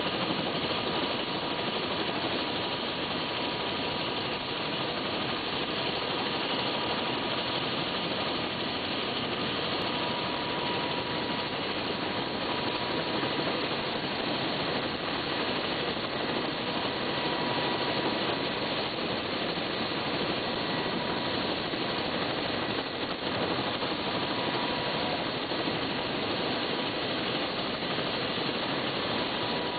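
Helicopter's turbine engine idling on the ground with the main rotor turning after landing: a steady whine over an even rushing noise.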